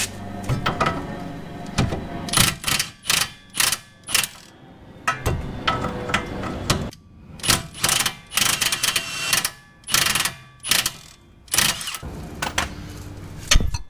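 Cordless power tool with a socket on an extension, run in about a dozen short bursts to spin the castle nut off the outer tie rod end's ball stud.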